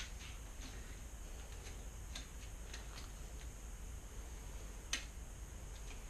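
Scattered light clicks and ticks, about half a dozen, the sharpest about five seconds in, from hands working a new bicycle shifter and its cables. A low steady hum runs underneath.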